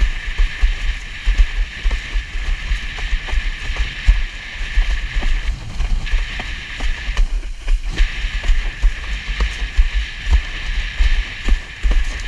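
Wind buffeting a GoPro's microphone in a low gusty rumble, with a steady hiss of water rushing under a windsurf board planing across choppy water and small slaps from the chop. The hiss briefly drops out twice near the middle.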